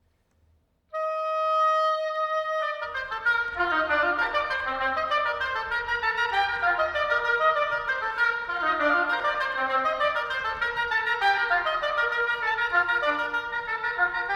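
Woodwind ensemble, led by clarinets, playing a lively Scottish fiddle tune. One instrument holds a single note about a second in, then the full ensemble comes in with fast running notes.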